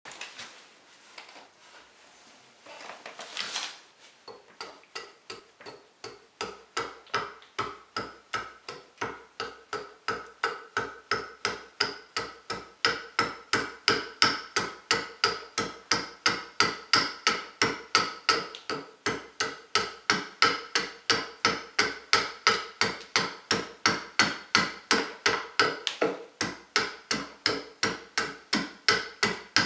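A small carving hatchet chopping into green, freshly cut broadleaf maple, roughing out the outside of a bowl. About three sharp chops a second, steady and even, start a few seconds in, after some rustling as the blank is handled.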